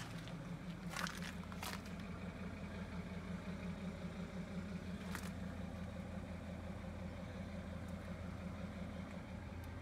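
A steady low mechanical hum, like an engine idling, with three short crunches of footsteps on gravel: two about a second in and one near the middle.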